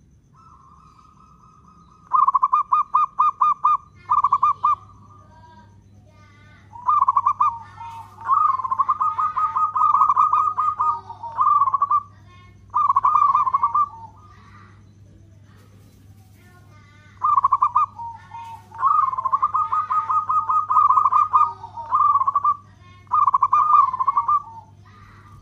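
Zebra dove singing its long cooing song. A soft opening coo is followed by runs of rapid, evenly pulsed coos strung into long phrases, in two rounds with a pause of about three seconds between them.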